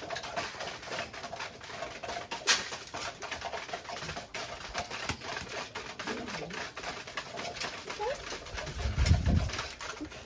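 Domestic pigeons cooing, among many small clicks and scratches. There is one sharp click about two and a half seconds in and a low rumble near the end.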